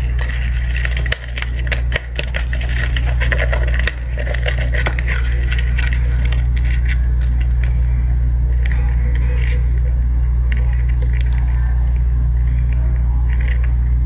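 A loud steady low hum, with scattered light clicks and crackles over it.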